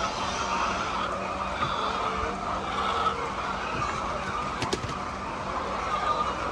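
A flock of hens clucking and squawking together in a dense, continuous chorus over a steady low hum, with one sharp click about two-thirds of the way through.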